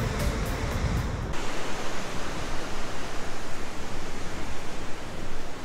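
Steady rush of ocean surf breaking against the sea cliffs below, mixed with wind. Background music cuts off about a second in.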